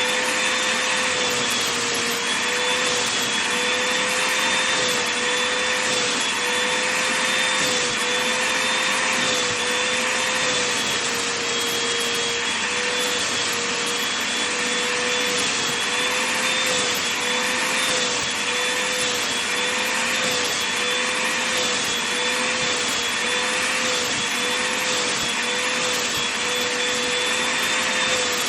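Vacuum cleaner running steadily over a blanket, a constant rushing noise with a high whine that wavers slightly in pitch.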